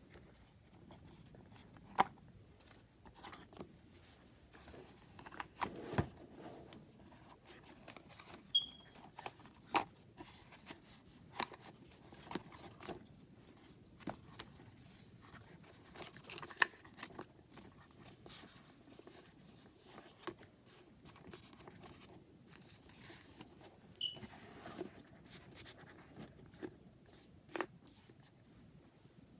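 Hands handling a tarot deck and its boxed packaging: scattered light taps and clicks over soft rustling, with two brief high squeaks.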